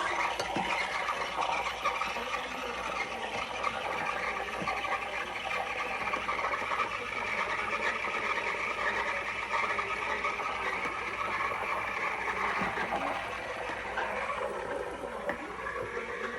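Espresso machine steam wand frothing milk: a steady hiss that thins out about fourteen seconds in.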